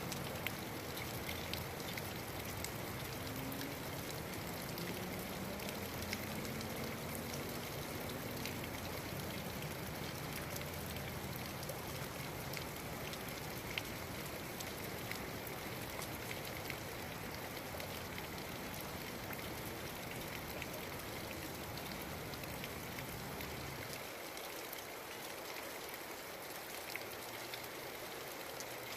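Steady rain falling, with scattered individual drops ticking close by. A low background rumble underneath drops away about four-fifths of the way through.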